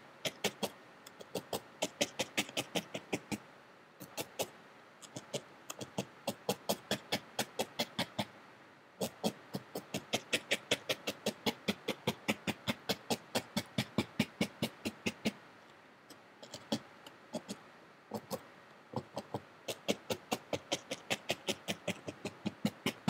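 A felting needle stabbing repeatedly through loose wool into a foam pad: a rapid run of crisp pokes, about four or five a second, with short pauses every few seconds. This is the first tacking-down of a loose wool circle into a flat felt brim.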